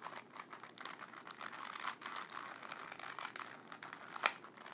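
Plastic Rubik's cube being twisted by hand, its layers clicking in quick, irregular turns, with one sharper click about four seconds in.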